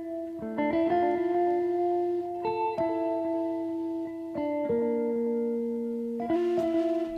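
Background music: plucked-string notes and chords that change every second or two, each new chord struck sharply and left to ring.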